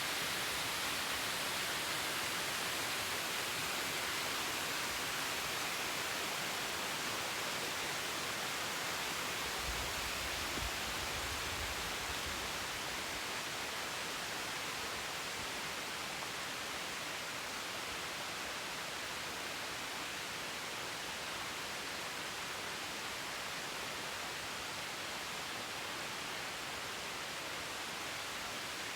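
Steady rush of a waterfall, an even hiss of falling water. A brief low rumble comes in about ten seconds in.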